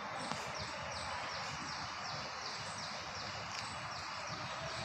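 A bird calling in the background: a short, high chirp falling in pitch, repeated steadily about three times a second, over a low steady background hum.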